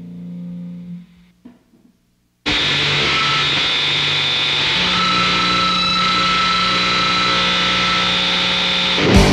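A distorted electric-guitar chord rings out and fades away, then a couple of seconds of near silence. About two and a half seconds in, a loud, dense wall of distorted metal noise starts abruptly, with a few high tones held steady through it. Drums and the full band come in near the end, opening the next track.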